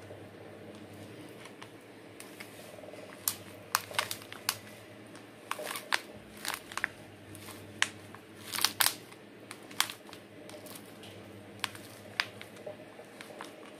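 Thin clear plastic plant pot crinkling and crackling in the hands as sphagnum moss is pressed down into it: irregular sharp crackles that come in clusters, thickest around the middle.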